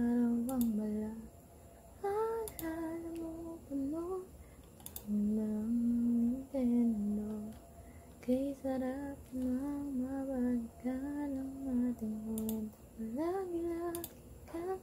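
A woman singing softly on her own, half-singing and humming a Tagalog song's melody in held, stepping notes without accompaniment.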